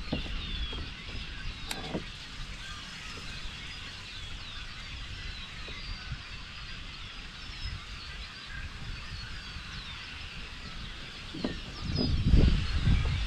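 Many short, high chirps from birds in the reeds, over a steady low wind rumble on the microphone. There is one sharp click early on, and the low rumble grows louder near the end.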